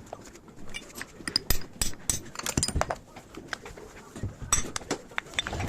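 Irregular clinking and tapping of small metal parts and tools being handled, a quick scatter of sharp clicks that is densest in the middle.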